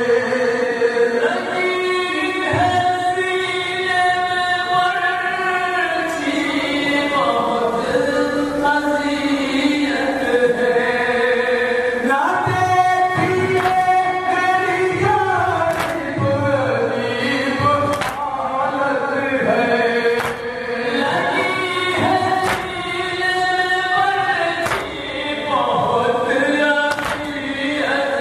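Noha, a Shia lament, chanted unaccompanied by male voices in chorus, with long held, wavering notes. Sharp slaps come now and then in the second half.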